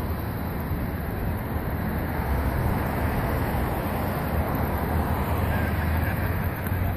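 Steady low rumble of motor vehicle noise with an even hiss over it.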